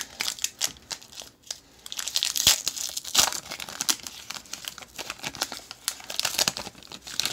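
Foil trading-card pack wrapper crinkling and tearing as it is peeled open by hand, in irregular crackly spurts that are busiest about two seconds in and again near the end.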